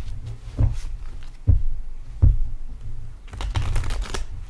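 A deck of tarot cards shuffled by hand, the cards snapping and sliding against each other: a few separate strokes about a second apart, then a quicker run of shuffling near the end.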